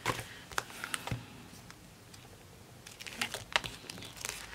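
Light clicks and rustles of sticker sheets and a plastic-sleeved sticker album being handled, a few taps in the first second, then a quieter stretch, then a cluster of rustling taps near the end.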